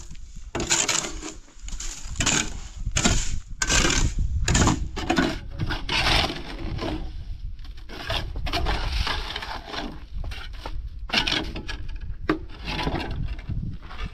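Repeated rasping, scraping strokes on wood, coming irregularly about one to two times a second, from hand work such as sawing or scraping timber.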